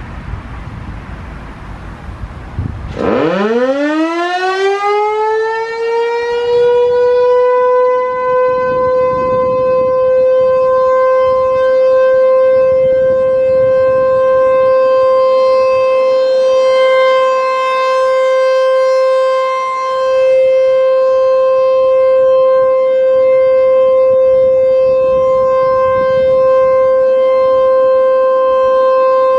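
ASC T-128 outdoor warning siren winding up about three seconds in. Its pitch climbs over several seconds, then holds as one steady, loud tone: the Alert signal of a siren test.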